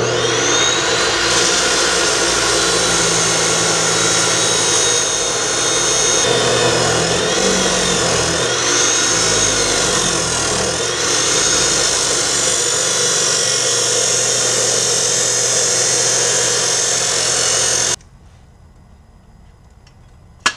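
Porter Cable abrasive chop saw running and cutting through 2x2 square steel tube. Its high whine sags and recovers a few times in the middle as the blade bites into the metal, and the sound cuts off suddenly near the end.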